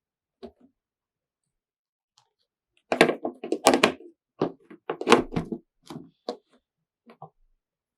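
Kitchen utensils knocking and clattering against bowls and the worktop: one faint knock near the start, then a quick run of sharp knocks from about three seconds in that thins out near the end.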